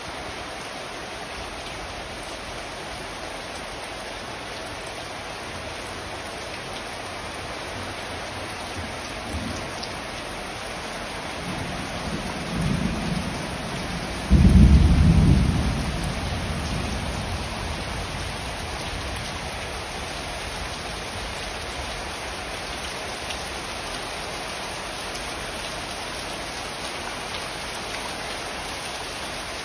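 Heavy rain pouring down steadily, with thunder. A low rumble builds, then a loud thunderclap about halfway through dies away over a couple of seconds.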